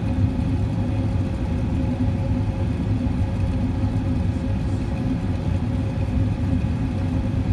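Airbus A380 cabin noise on approach: the steady low rumble of the jet engines and airflow, with a constant hum running through it.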